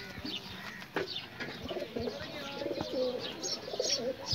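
A flock of domestic pigeons cooing, several overlapping, wavering coos running together through most of the stretch. Short high chirps and a few sharp clicks come in among them.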